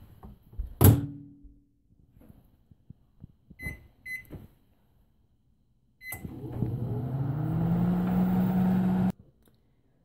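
A microwave oven door shuts with a loud click, two keypad beeps follow a few seconds later, then a third beep as the Genius Sensor 1300 W microwave oven starts. Its running hum rises in pitch over about a second, holds steady, and cuts off suddenly.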